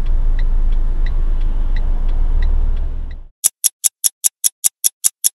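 Low hum of a stationary car heard from inside the cabin, with the hazard-light flasher ticking about three times a second. About three seconds in this cuts off and a fast run of sharp, evenly spaced ticks follows, about five a second, as an added time-passing sound effect.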